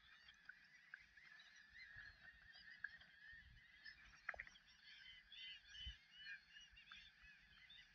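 A distant flock of birds calling faintly, many short overlapping calls at once, with a few soft clicks.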